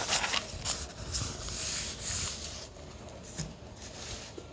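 Paper pages of a notebook being turned by hand and pressed flat, a rustling of paper that is busiest in the first two seconds or so and quieter after.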